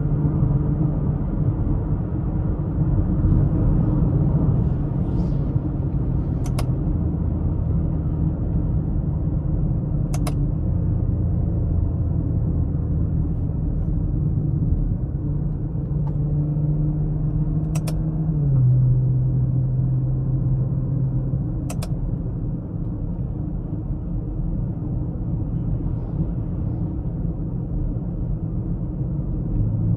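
Tuned BMW X5 xDrive45e's turbocharged inline-six running while driving, a low drone with road rumble; the engine note holds steady and steps to a new pitch a couple of times. Four short sharp clicks cut through it.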